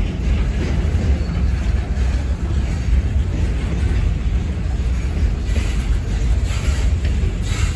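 Freight train's covered hopper cars rolling past, a steady low rumble of steel wheels on rail. A few short, higher-pitched clatters come in near the end.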